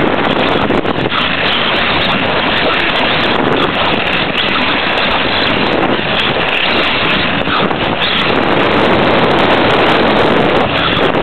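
Steady, loud rushing noise picked up by a camera mounted on the front of a Team Associated B44.1 4WD radio-controlled buggy running a lap: wind over the microphone together with the tyres and chassis running over the track, with no distinct motor whine standing out.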